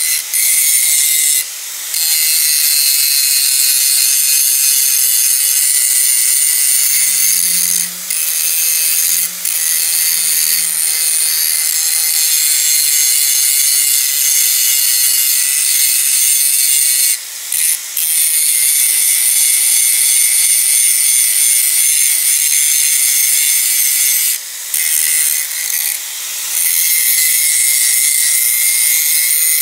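Angle grinder grinding a freshly forged dagger blade: a steady, high-pitched grinding that drops away briefly about eight times as the disc comes off the metal.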